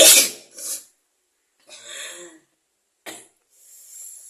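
A person's sudden, loud explosive burst of breath from the nose and mouth, followed at once by a smaller one, then a few quieter breathy sounds.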